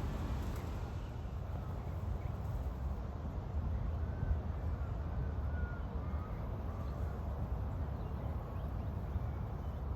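Wind rumbling on the microphone outdoors, with a few faint bird chirps in the middle.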